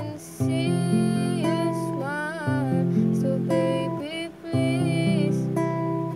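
Classical acoustic guitar played by hand, plucked chords changing about every two seconds, with a voice singing a melody over it.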